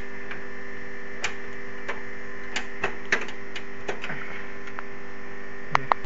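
Steady electrical mains hum with several fixed tones, with irregular light clicks and taps from computer parts being handled. Two sharper clicks come near the end.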